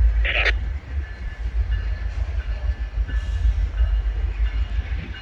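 Trains at a station: a heavy, steady low rumble, with a short sharp burst of noise just after the start and faint thin high tones in the second half.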